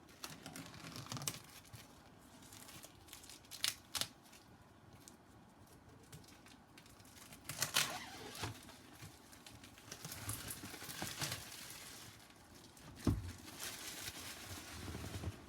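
Packaging wrap being torn open and crinkled by hand, in irregular rustles and crackles with a few sharp snaps. A short dull thump about thirteen seconds in.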